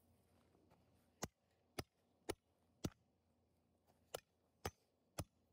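A hammer striking a toy car: seven sharp hits about half a second apart, with a pause of about a second after the fourth.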